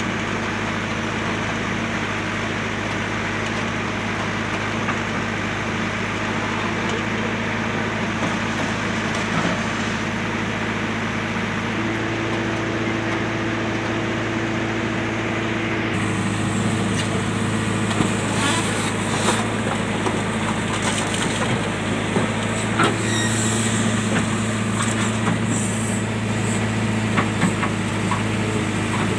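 A JCB machine's diesel engine running steadily. About halfway through its sound changes, as though the hydraulics were put under load, and it carries on with scattered clanks and knocks.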